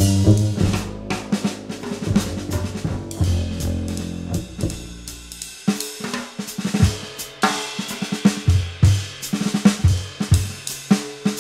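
Jazz trio playing, with the upright double bass sounding low notes; about halfway through the bass and keys drop out and the drum kit plays alone, a drum break of snare, bass drum and cymbal hits.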